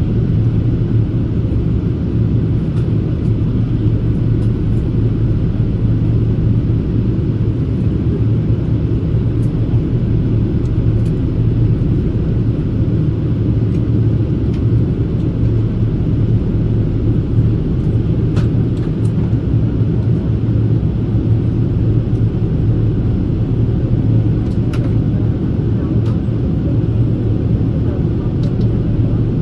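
Steady in-flight cabin noise of a Boeing 787-8 with Rolls-Royce Trent 1000 engines: engine and airflow noise as a constant low drone with a steady hum underneath, unchanging throughout.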